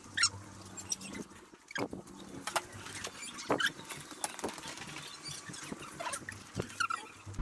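Faint light taps and clicks with a few short high squeaks, near the start and again near the end.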